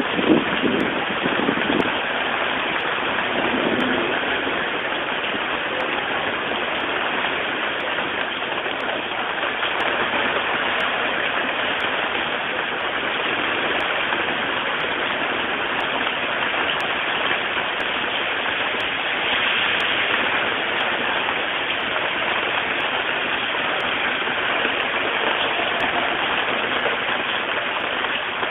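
Heavy storm rain falling steadily onto a flooded street, a constant rushing hiss.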